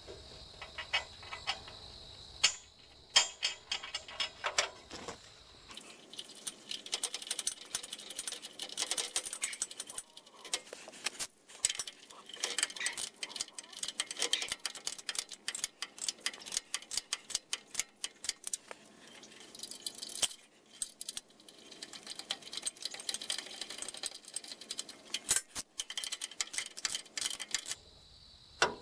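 Hand ratchet clicking in quick runs, with light metal clinks, as bolts are tightened into a log turner bracket on a steel sawmill bed frame.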